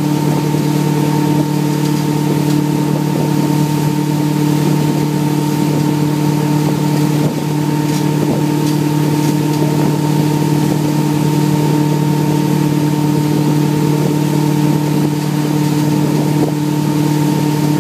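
Motorboat engine running at a steady pitch while towing a wakesurfer, over a hiss of wind and water.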